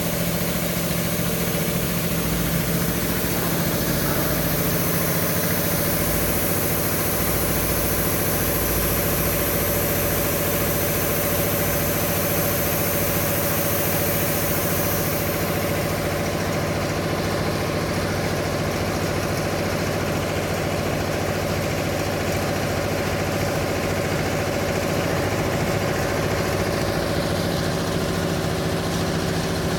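CNC plasma cutting machine running: a steady mechanical hum with several constant tones, under a high hiss that drops away about halfway through.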